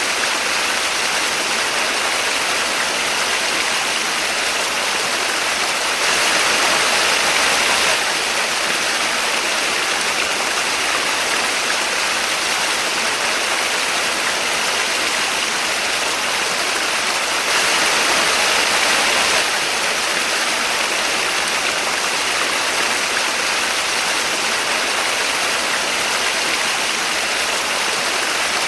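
Small waterfall: water falling and splashing in a steady, dense rush, swelling slightly louder twice for about two seconds.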